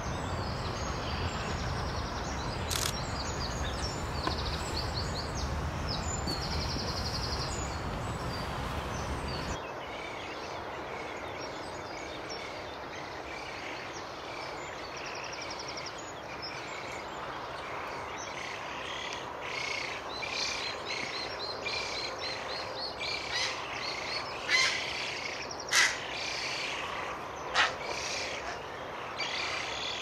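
Birds chirping and trilling over a steady outdoor background noise. A low rumble under them drops away about ten seconds in, and three short, louder sounds stand out near the end.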